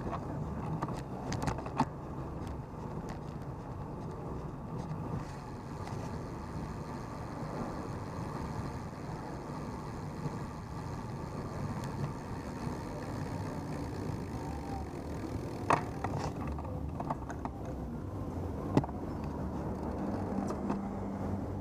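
Street traffic heard from a road bike: a steady rumble of car engines and tyres, with a few sharp clicks about two, sixteen and nineteen seconds in.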